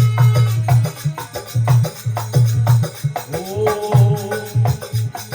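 Instrumental interlude of a Marwari folk devotional bhajan: a steady, rhythmic low hand-drum beat with sharp clacking and jingling percussion, joined by a melodic line about three seconds in.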